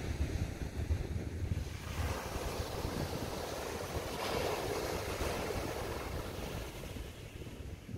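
Small waves breaking on the shore with a hissing wash that swells about four seconds in and then fades. Wind rumbles on the microphone in the first couple of seconds.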